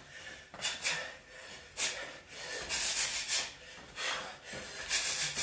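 Sharp hissing breaths out, forced with each punch of a shadowboxed combination of hooks, coming in quick clusters of two or three about every second.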